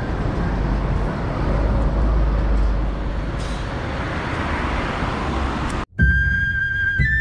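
Street traffic noise with a steady low rumble; about six seconds in it cuts off abruptly and a flute melody of held notes begins.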